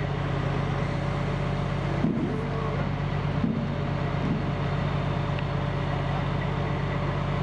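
Crane truck's engine running at a steady speed, a constant low drone, while the crane holds and lowers a heavy tank turret.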